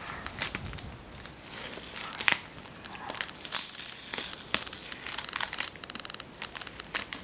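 Packaging being unwrapped by hand: irregular crinkling, crackling and tearing, with sharp snaps, the loudest about three and a half seconds in, and a brief rapid ticking near the six-second mark.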